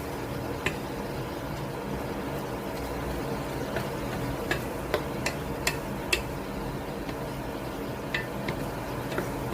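Irregular light clicks and clinks of kitchen utensils against cookware, about a dozen over the stretch, over a steady low hum.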